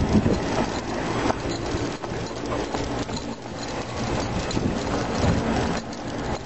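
Jogging footfalls of a runner and two leashed dogs on pavement, under a steady noisy rumble from wind and movement on the handheld camera.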